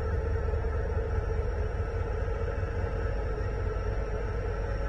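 Diesel locomotives of a slow-moving freight train passing, among them an EMD SD70ACe: a steady deep engine rumble with a constant hum, without break.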